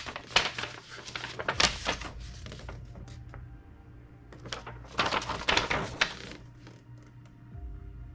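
Paper instruction sheet rustling as it is unfolded and opened out, in several bursts, the biggest about five seconds in.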